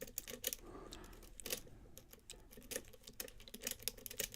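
Faint, irregular small metal clicks and taps of a tension wrench and lock pick working in the wide Weiser keyway of a pin-tumbler challenge lock.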